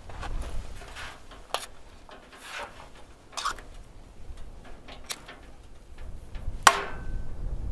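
Scattered light clicks and taps about a second apart, with a sharper, louder knock near the end that rings briefly.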